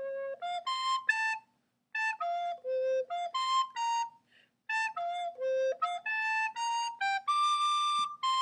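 Soprano recorder playing the ending pattern of the tune in short, separately tongued notes, three quick phrases with brief breaks between them, dipping down to the low C, with one longer high note near the end.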